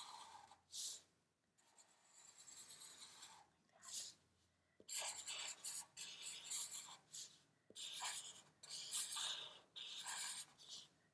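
Black felt-tip marker drawing on paper: a string of short scratchy strokes with brief pauses between them as a flower stem and leaf are inked.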